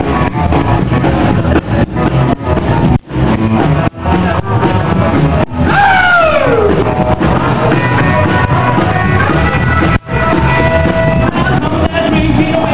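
Rock-and-roll band playing an instrumental break, with guitar to the fore. A note slides down in pitch about six seconds in, and the band stops short briefly near three, four and ten seconds.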